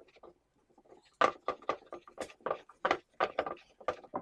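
Plant-stand parts being handled and fitted together: an irregular run of sharp knocks and clacks, about three to four a second, starting about a second in.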